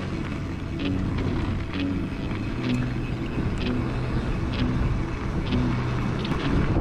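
Background electronic music with a steady beat about once a second and short low notes, over a dense low rumble.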